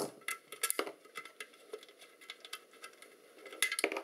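Irregular light clicks and taps of a screwdriver and hand tools against the metal housing of a flare dispenser unit as a fastener is worked loose, with a quick cluster of clicks near the end.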